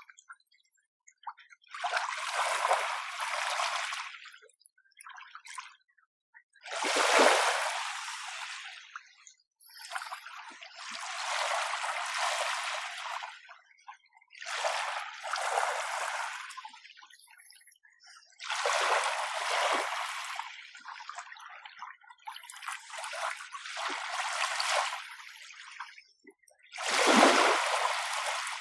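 Small waves washing up on a shore one after another, each a hiss of surf lasting two or three seconds, with short quiet gaps between. About eight waves come in, and the ones about a quarter of the way in and near the end are the loudest.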